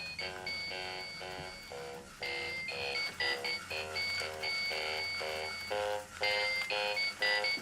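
Electronic alarm clock playing a beeping melody of short electronic notes, about three a second, with brief breaks about two seconds in and again near the end.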